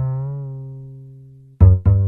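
Background music: a low note rings and slowly fades, then two quick new notes come in near the end.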